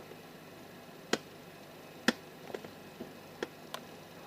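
Half a dozen sharp, isolated clicks and taps at irregular intervals, like small tools being set down or tapped against a circuit board at a soldering bench.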